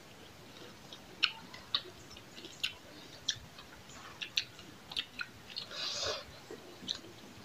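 Close-up eating sounds of people eating rice and curry with their fingers: scattered wet chewing and lip-smacking clicks, with a brief hiss about six seconds in.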